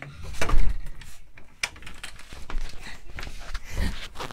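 Irregular knocks and thumps of a person moving about and sitting down on a plastic stool, the loudest thump about half a second in and another shortly before the end.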